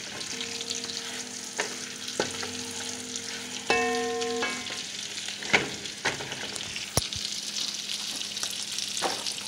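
Spicy Italian sausage pieces sizzling as they brown in butter and olive oil in a metal pan, a steady hiss. A spatula scrapes and taps against the pan now and then as the pieces are turned.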